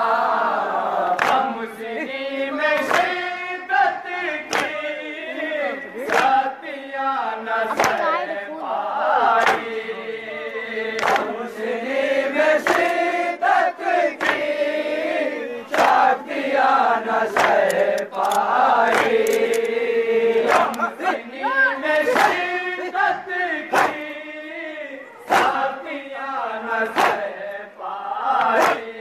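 Crowd of men chanting a Shia noha (mourning lament) together, with sharp chest-beating slaps (matam) keeping a steady beat about once a second.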